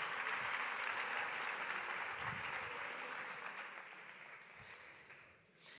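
Audience applauding, the clapping fading away steadily until it stops.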